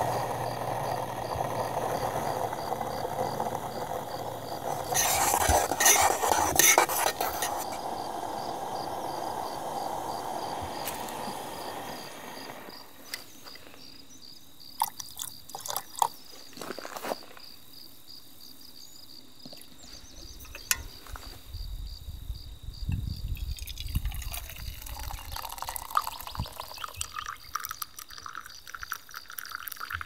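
Butane camp stove burner running with a steady rushing hiss that cuts out about twelve seconds in. After it, scattered clinks of metal cookware and liquid being poured, ending with coffee poured into a metal mug.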